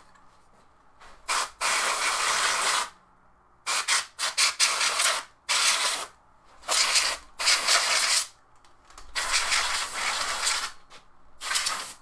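Can of compressed air duster sprayed in repeated hissing blasts, some short puffs and some held for a second or more, blowing dust off the circuit boards and cooling fans of an opened plasma TV.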